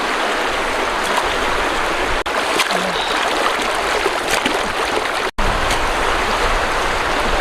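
Steady rush of flowing stream water, even and loud, broken by two very brief dropouts.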